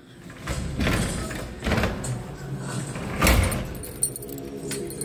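Handling noise from a phone being moved around: irregular rubbing and knocks on its microphone, the loudest of them about three seconds in.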